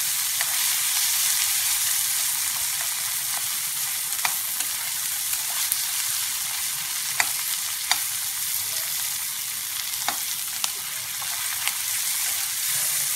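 Chopped onion, tomato, garlic and green chilli frying in oil in a metal kadai, a steady sizzling hiss as the tomatoes cook down and release their water. A spoon stirs them, giving scattered sharp clicks as it scrapes and taps the pan.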